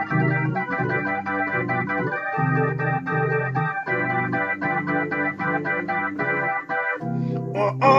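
Electronic keyboard played with an organ tone in a slow blues: held chords with low bass notes moving beneath them. A singing voice starts just at the end.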